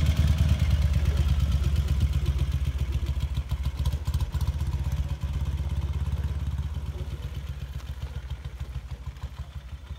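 Zündapp motorcycle with sidecar riding off, its engine running with a steady low throb that fades away over the last few seconds as it moves off.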